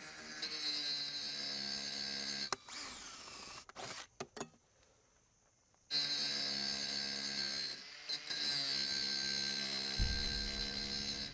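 Angle grinder cutting metal, running with a steady high whine. It stops about two and a half seconds in, a few knocks follow, then it starts up again about six seconds in. Near the end a low rumble comes in as fire flares up under the buggy.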